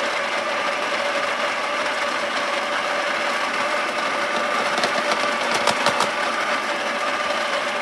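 Breville Dose Control burr coffee grinder running steadily as it grinds beans, with a steady hum at two pitches over a grinding rasp. A few sharp clicks come about five to six seconds in.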